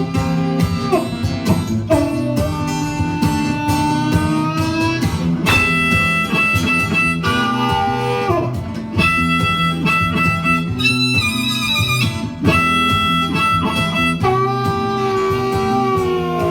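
Blues harmonica solo over guitar accompaniment, with long held notes that bend up and down in pitch.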